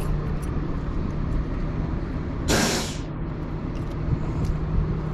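A tow truck's engine idling with a steady low hum. About halfway through comes a short, sharp hiss of released air, as from an air brake.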